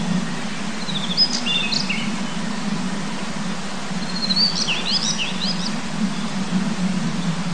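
Male Daurian redstart singing: two short phrases of quick, jumping high notes, about a second in and again about four seconds in, over a steady low rush of background noise.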